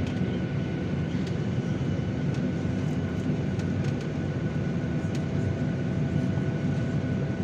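Airliner cabin noise on the ground: the engines running steadily with a constant low rumble and a faint steady whine, heard from inside the cabin.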